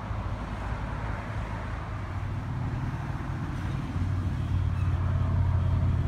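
An engine running steadily with a low hum, growing louder about four seconds in.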